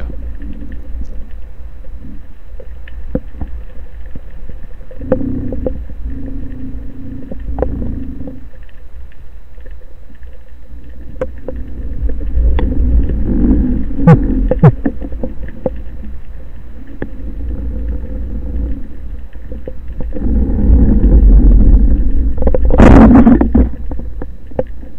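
Underwater rumble of moving water and surge with scattered small clicks. About 23 s in, the band-powered speargun fires with a sharp, loud crack, a shot that misses.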